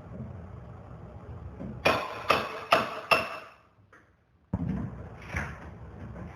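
Four quick metallic hammer blows, each ringing briefly, then a short lull before work noise resumes abruptly.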